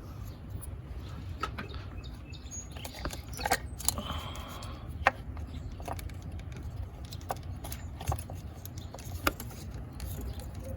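Scattered light clicks and taps of the ignition coil being handled and pushed back onto a spark plug in the engine bay. A low steady rumble runs underneath.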